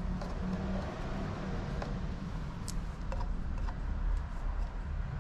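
A few light clicks and taps as hands handle metal parts at the engine's timing belt area, over a steady low hum.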